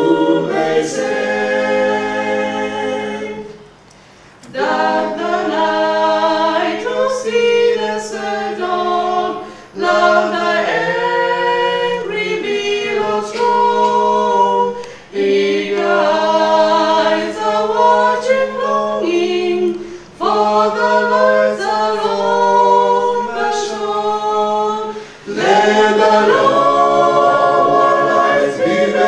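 A small family group of men and women singing a hymn a cappella, several voices together, in phrases of about five seconds with short breaths between them.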